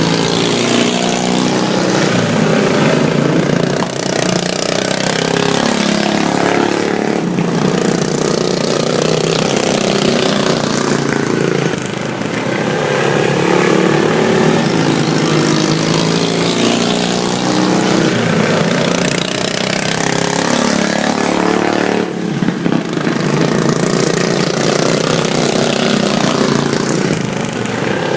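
Several super stock racing lawn mowers running flat out together, their engines making a loud, steady din that swells and fades as the mowers come past and move away.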